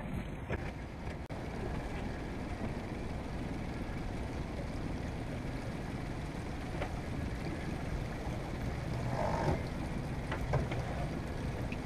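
Small boat's engine ticking over at low idle with a steady low rumble while the boat comes alongside a moored boat. A brief squeak about nine seconds in, such as a fender pressed between the hulls makes.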